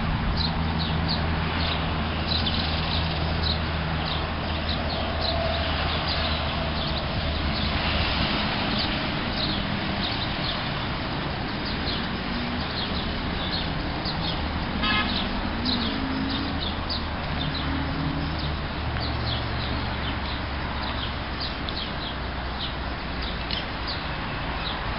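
Birds chirping, many short high chirps in quick succession throughout, over a steady low mechanical drone.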